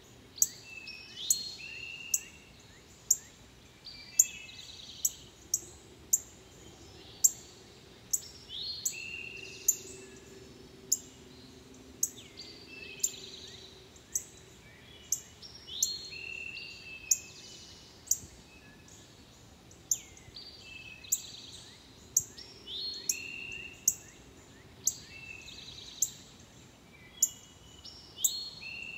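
Songbirds calling: sharp, high chip notes about once a second, with short whistled song phrases and trills between them.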